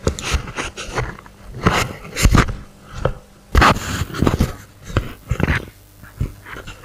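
Handling noise on a lectern microphone: irregular bumps, rustles and breathy puffs picked up close on the mic, a series of uneven bursts.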